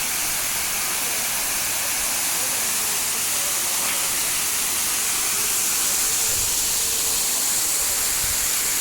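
Waterfall's water pouring down, a steady rushing hiss.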